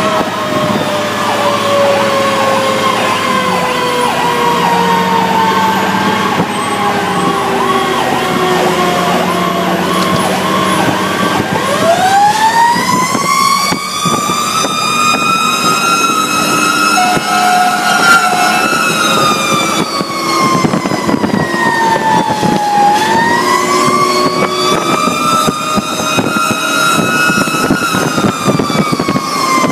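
Fire truck siren on an emergency response, heard from inside the cab of a Pierce Arrow XT aerial ladder truck. The wail falls slowly in pitch over the first ten seconds under a fast warbling tone, then rises and falls in two long, slow sweeps.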